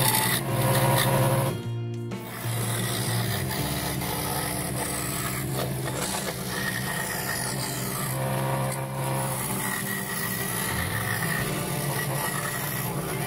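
Record Power scroll saw running, its thin reciprocating blade rasping through a small piece of wood as the piece is fed and turned along a curved cut, over a steady motor hum. The sound briefly drops about two seconds in, then carries on steadily.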